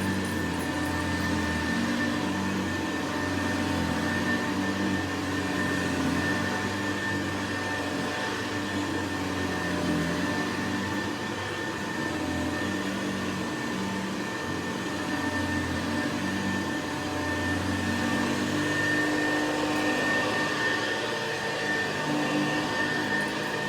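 Vintage Hoover 707 upright vacuum cleaner running steadily, its motor drone carrying a steady high whine, while it picks up rice.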